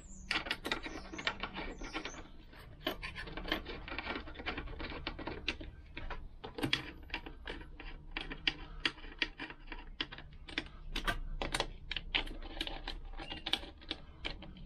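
Small nuts being spun down by hand onto the studs of a Lambretta gearbox end plate: a long run of quick, irregular light metallic clicks and ticks.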